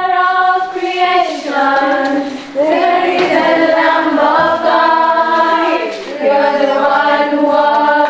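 A group of girls singing together in chorus, holding long notes across several phrases with brief breaks between them.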